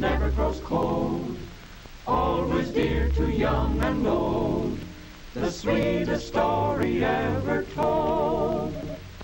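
Vocal music from an oratorio: voices singing in short phrases with vibrato, separated by brief pauses, with a deep bass note under the phrases in the first few seconds.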